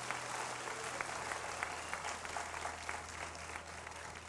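Audience applauding: many hands clapping as one even patter, thinning slightly near the end.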